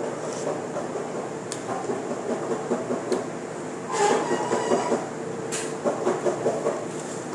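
A person slurping lomi, a thick noodle soup, from a spoon and chopsticks, in two bursts in the second half, with a few light clicks. A steady hum underneath.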